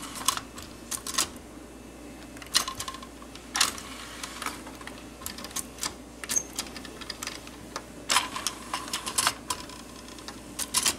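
Pioneer CT-M55R cassette changer mechanism shuttling a cassette into the playback deck: a run of irregular mechanical clicks and clacks, some in quick clusters, over a faint steady motor hum.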